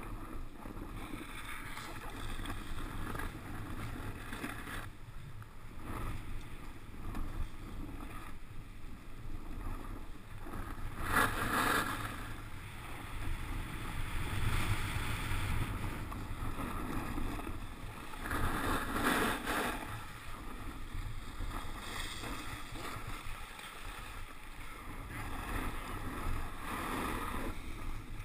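Snowboard sliding and scraping over packed snow, with a low rumble of wind buffeting the microphone. The scraping hiss swells twice, about eleven seconds in and again about nineteen seconds in.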